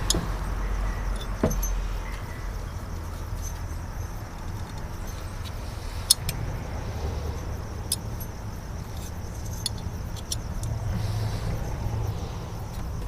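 Hand tools working on an engine: a few sharp, separate metal clicks and clinks over a steady low rumble.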